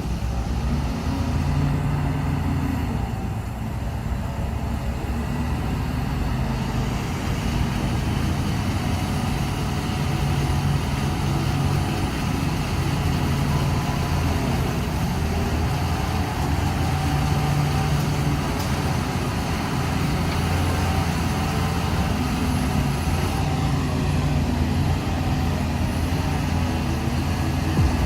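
Heavy diesel earthmoving machinery running continuously, its engine note swelling and easing every several seconds as it works under load.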